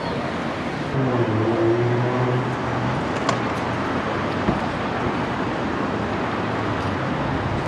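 Road traffic noise, with one vehicle's engine hum standing out for about a second and a half starting about a second in.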